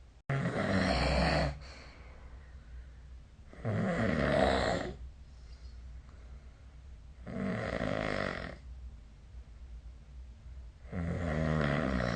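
A sleeping person snoring: four snores, each a little over a second long, coming about every three and a half seconds.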